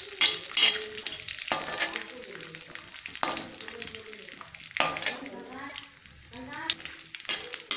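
Cashews and almonds sizzling in hot ghee in a metal kadhai while a metal spatula stirs and scrapes them, with a few sharper scrapes against the pan.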